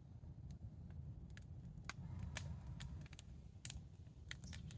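Wood campfire crackling, with irregular sharp pops over a low rumble.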